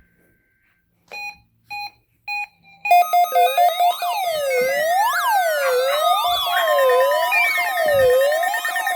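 Three short electronic beeps about half a second apart, then a loud electronic alarm: many overlapping wailing siren tones over a steady held tone, with a long falling tone partway through.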